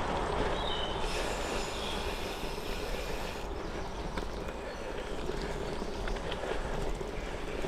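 Goodyear Connector gravel bike tyres rolling over a rough trail surface, a steady rumbling crunch with wind on the microphone.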